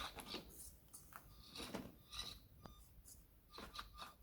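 Faint, irregular scrapes and clicks of a 1/24-scale mini RC crawler working its way over the track.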